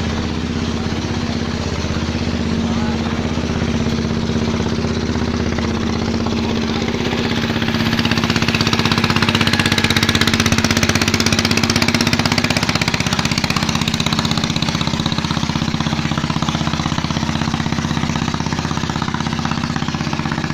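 Engine running steadily, growing a little louder and busier from about eight seconds in before settling back.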